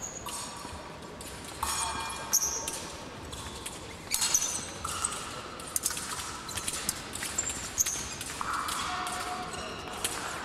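Épée fencers moving on the piste during a bout: scattered thumps and stamps of footwork, sharp clicks, and several short high squeaks.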